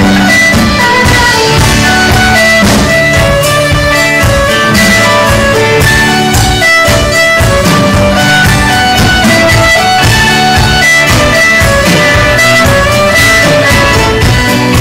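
Live Scottish folk-rock band playing a tune: fiddle carrying the melody over strummed guitar and a steady drum-kit beat.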